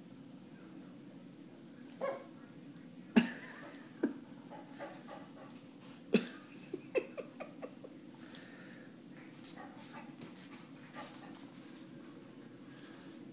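A Pembroke Welsh Corgi puppy making short, scattered yips during play, a few seconds apart, with a quicker run of them in the middle.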